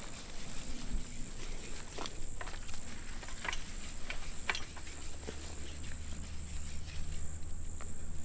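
Steady high-pitched insect trill, with a scattered handful of light clicks and taps over it.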